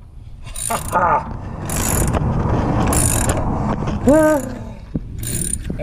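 Ratchet wrench cranking the centre screw of a harmonic balancer puller, clicking in strokes about once a second as the balancer is drawn off the crankshaft of a Ford 302 V8. A short pitched sound rises and falls about four seconds in.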